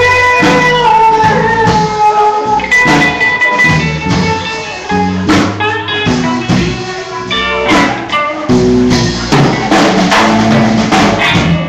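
Live rock and roll band playing: electric guitars over a drum kit with steady drum and cymbal hits, recorded loud on a phone.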